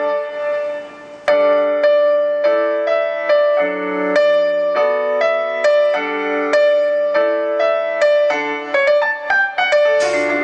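Piano playing the gentle chordal intro of a song, chord after chord struck and left to ring. The playing pauses briefly about a second in, and lower notes join near the end.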